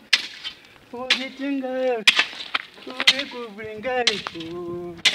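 A short-handled hoe chopping into dry soil, a sharp strike every second or so. Between the strikes a man's voice chants in long, held notes.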